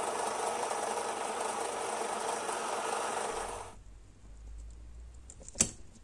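Bench drill press running, its small bit drilling into a brass lighter tube; the drilling stops a little under four seconds in. A single sharp click near the end.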